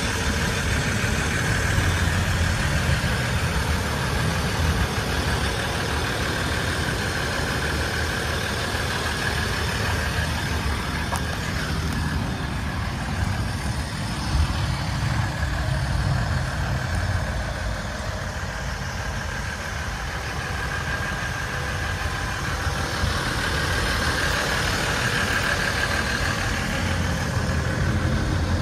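A 3.0-litre V6 EcoDiesel engine in a Ram 1500 pickup idling steadily, a constant low rumble with no revving.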